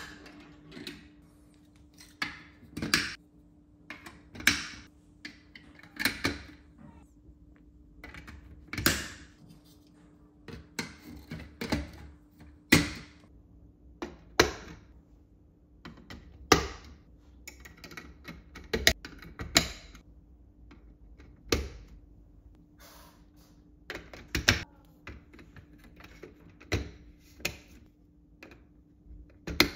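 Hard plastic marble-run pieces being handled and snapped into place: irregular clicks and clacks every second or two.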